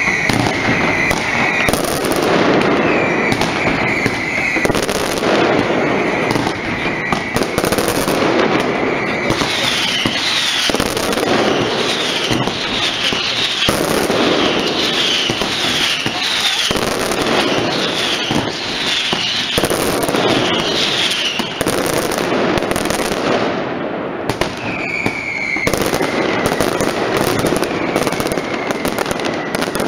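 Mascletà barrage of firecrackers: a dense, unbroken rattle of loud bangs. High whistles glide down in pitch over it, at the start, as a run of short chirps through the middle, and again near the end.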